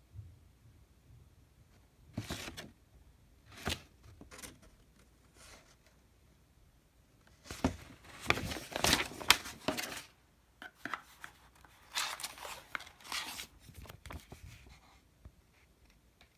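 Paper being handled: a printed sheet and a stapled manual booklet rustling and crinkling in short bursts, a few single ones first, then two longer, busier spells of rustling in the second half.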